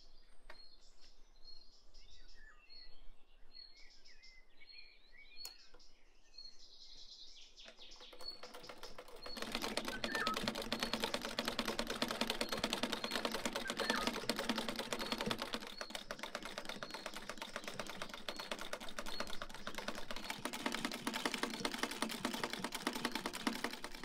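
A bird chirping in short repeated calls, then, about nine seconds in, an old black-and-gold sewing machine starts stitching thick woven fabric: a rapid, steady mechanical clatter of needle and mechanism that runs on and is the loudest sound.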